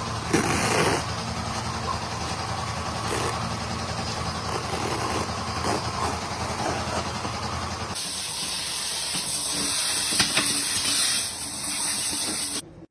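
A vehicle engine runs steadily. About eight seconds in, a loud, steady hiss of air takes over and cuts off suddenly near the end.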